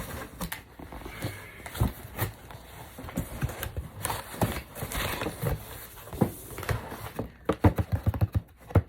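Packaging being handled and opened by hand: rustling with irregular clicks and knocks, and a quicker run of sharp clicks near the end.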